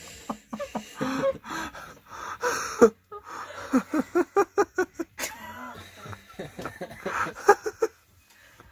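People laughing hard in several bursts of quick, breathy pulses, about five a second, with breaths between the bursts, dying down near the end.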